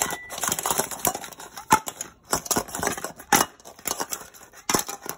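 Scratchy, crackling handling noise of salt and seasoning being worked over a raw blue crab's shell, irregular clicks and scrapes with short pauses about two seconds in and again near the end.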